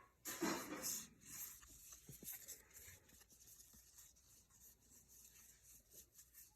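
Baseball trading cards being slid and shuffled by hand. There is one louder papery swish about half a second in, then faint soft rubs and small taps of card stock.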